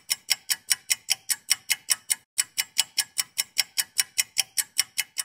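Rapid, perfectly even clock-like ticking, about six or seven ticks a second, with one beat missing about two seconds in. It is a ticking sound effect.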